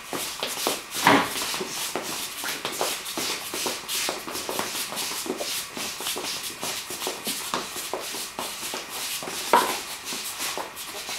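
Children's shoes shuffling and stepping on a hard classroom floor as they move around in a circle, many quick scuffs and taps. Two louder short sounds stand out, about a second in and near the end.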